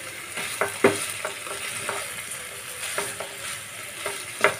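Spiny gourd slices frying in oil in a nonstick wok while a spatula stirs and turns them: a steady sizzle with sharp taps and scrapes of the spatula against the pan, the loudest about a second in and again near the end.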